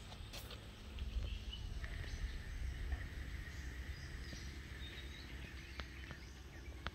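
Outdoor rural ambience: a low rumble with faint birds chirping and a thin, steady high tone that holds for a couple of seconds near the middle.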